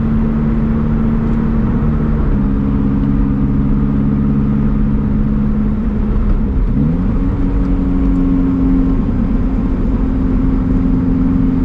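Lotus Elise Sport 220 II's supercharged Toyota 2ZR 1.8-litre four-cylinder engine running at a steady, moderate pace, heard from inside the cabin over low road noise. Its note rises about seven seconds in as the car accelerates, then holds steady at the higher pitch.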